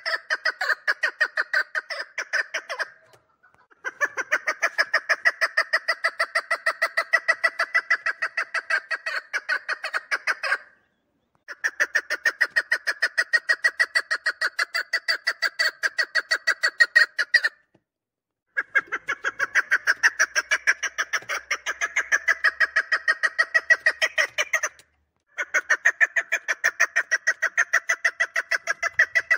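Chukar partridge calling in a fast, even series of chuk notes, about five or six a second. The calling comes in runs of several seconds broken by short silent pauses.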